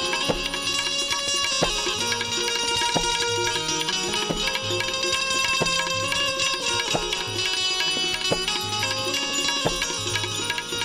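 Instrumental bhajan music with no singing: tabla playing under steady, held melody notes.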